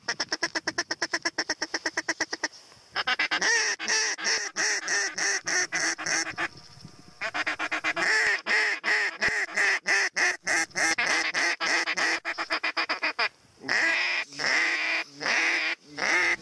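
Waterfowl calling: long strings of rapid quacks and honks, at first about eight a second, then in looser runs with short breaks.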